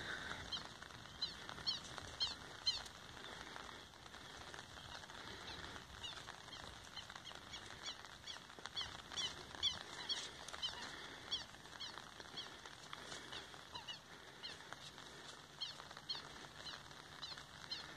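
Small birds chirping, many quick high chirps repeating through the whole stretch, over a faint steady hiss of light drizzle.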